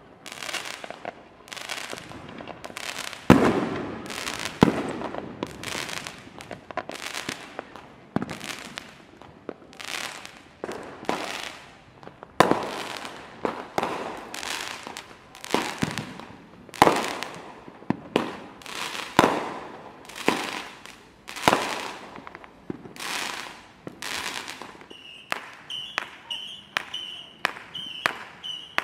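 Fireworks and firecrackers going off: a continuous run of sharp bangs and pops at irregular spacing, each with an echoing tail, the loudest about three seconds in. Near the end a high chirp repeats about twice a second alongside them.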